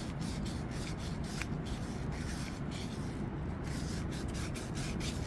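Abrasive scrubbing on a metal drain tailpiece in quick back-and-forth strokes, about three a second: the pipe being cleaned bright for soldering.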